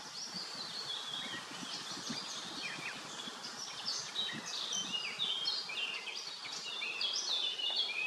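Songbirds twittering in quick runs of short, falling notes over the low, steady hum of honeybees flying around a hive entrance. The birdsong is the loudest part.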